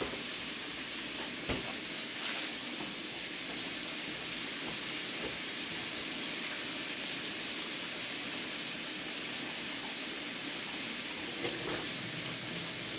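Steady hiss from the stovetop, where a gas burner is lit under a skillet of heating grease, with a single light knock about a second and a half in.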